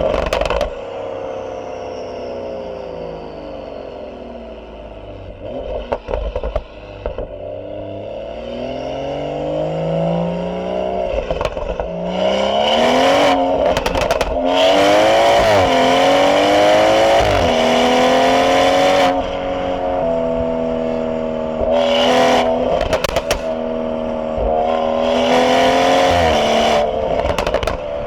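BMW 440i's turbocharged B58 inline-six, fitted with a catless downpipe, pulling hard through the gears: the engine note climbs in pitch and drops at each upshift several times, then holds steady at cruise, with loud rushing noise while under power.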